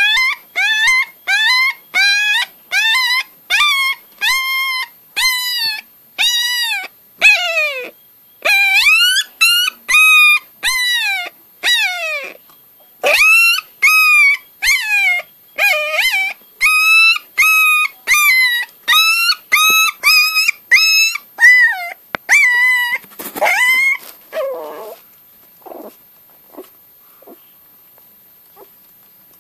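Puppy trapped in the spokes of a bicycle wheel, yelping and crying in distress over and over, a couple of high-pitched cries a second. About 24 seconds in the cries weaken and die away, leaving only a few faint sounds.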